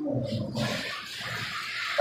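Tap water running into a stainless steel sink while something is rinsed under it.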